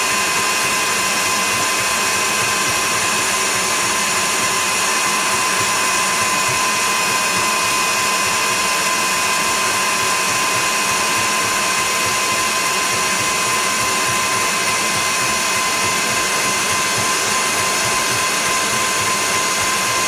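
Kenwood stand mixer motor running steadily as its whisk beats egg whites into meringue: an even whir with a constant whine.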